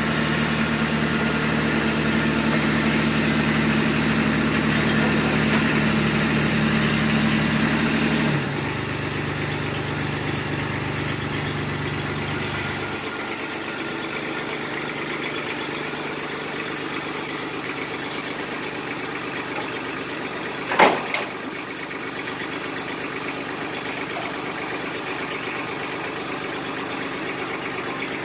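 Ditch Witch SK750 mini track loader's engine running steadily, then dropping to a quieter, lower idle about eight seconds in, with a further drop a few seconds later. A single short, sharp sound stands out about 21 seconds in.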